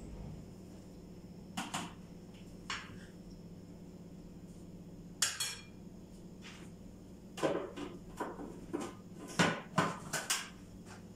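Plastic clicks and knocks of a food processor's lid and bowl being handled and fitted in place: a few single clicks, one sharper about five seconds in, then a quick cluster of clatter near the end.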